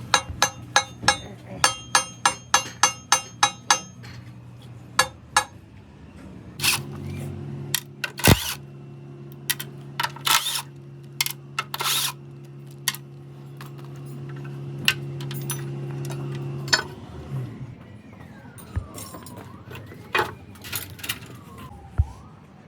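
Rapid ringing metallic clinks, about four a second, then a steady motor hum for about ten seconds with scattered knocks over it. Near the end a siren wails up and down.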